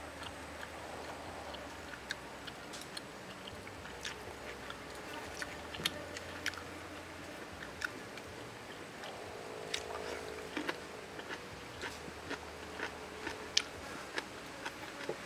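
A person eating steamed fish by hand: irregular small clicks and crunches of chewing, over a steady outdoor background hiss.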